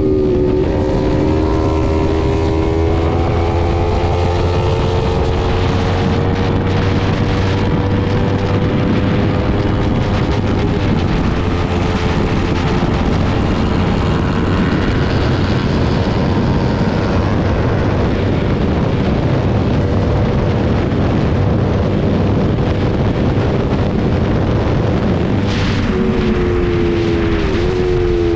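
Motorcycle engine running at cruising speed, with wind rushing over the microphone. The engine note climbs slowly for the first ten seconds or so, then holds steady, and dips a couple of times near the end.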